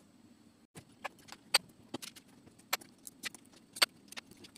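Light, irregular clicks and taps of a screwdriver and small parts as the screws of a Märklin 3047 H0 model locomotive are undone and its housing is taken off, about a dozen faint clicks.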